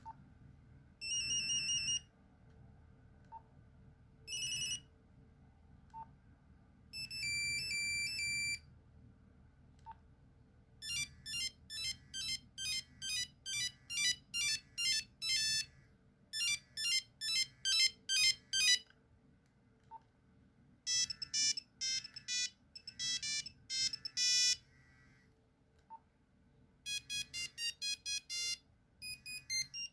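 Nokia 3310 mobile phone playing its monophonic ringtones one after another, each a few seconds long. Some are brief held beeps, others quick melodies of single notes. Faint clicks fall in the gaps between them.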